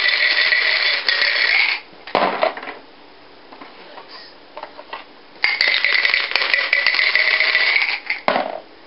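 Yahtzee dice rattling hard in a plastic dice cup for about two seconds, then a short clatter as they are rolled out. About five seconds in, the same shake and roll comes again.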